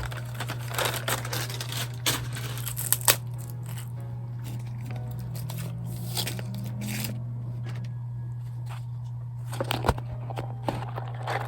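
Crinkling and tearing handling noises with scattered sharp clicks, thickest in the first few seconds and again near the end, over a steady low hum.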